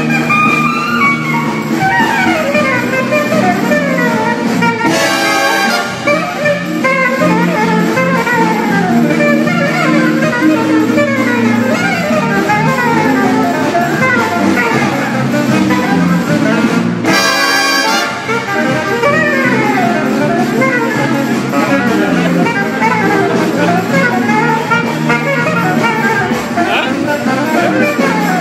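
Alto saxophone playing a fast improvised jazz solo of rapid rising and falling runs over a frevo brass band's backing.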